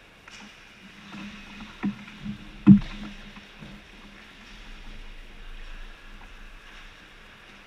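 Ice hockey play close by: three knocks and thuds from sticks, puck and boards in quick succession a couple of seconds in, the third the loudest, over skate blades scraping on the ice.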